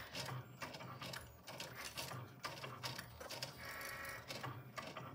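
Cricut cutting machine drawing with a pen, its motors whirring and clicking faintly in short, irregular moves. A little before four seconds in there is a brief, steadier motor whine.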